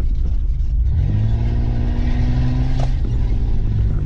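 Mitsubishi Pajero engine heard from inside the cabin while driving, over a steady low road rumble. About a second in, the engine note climbs a little as it pulls, then drops back about three seconds in.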